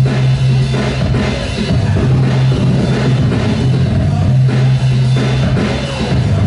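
Loud rock music with a drum kit and a heavy, held bass line, played over a sound system for the dancers.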